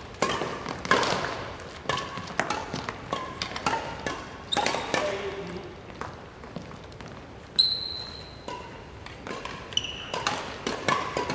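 Badminton rackets striking shuttlecocks in a large sports hall: a stream of sharp, irregular smacks from several courts at once. A couple of brief high shoe squeaks on the wooden floor come about eight and ten seconds in.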